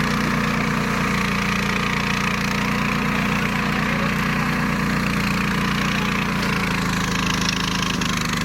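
The 15 hp Hyundai engine of a flail mower running steadily, its note shifting slightly about six and a half seconds in.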